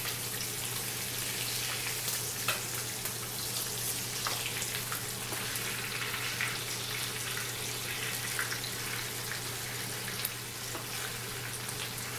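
Chicken leg pieces sizzling steadily as they fry in oil in a pan, with scattered clicks and scrapes of metal tongs and a spatula turning them, the sharpest about two and a half seconds in. A steady low hum runs underneath.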